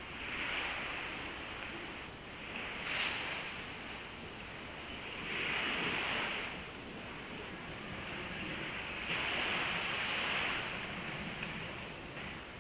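Small waves washing onto the beach, the surf swelling and fading about three times, with a brief sharp click about three seconds in.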